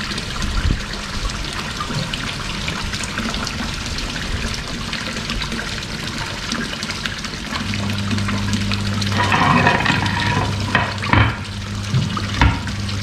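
Steady splashing of a koi pond waterfall. About eight seconds in, a steady low hum starts: the Resun LP60 electromagnetic air pump running again after its filter cleaning and reassembly. A couple of sharp knocks near the end.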